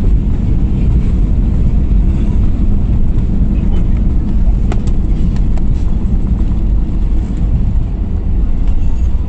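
Airliner cabin noise during the landing roll: a loud, steady low rumble of the engines and the wheels on the runway as the plane rolls along.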